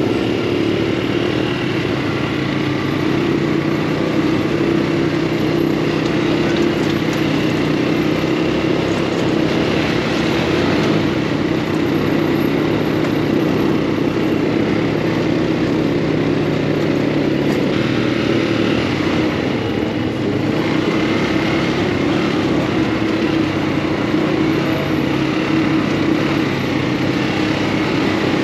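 Off-road buggy engine running steadily under way, a loud continuous drone with small shifts in pitch.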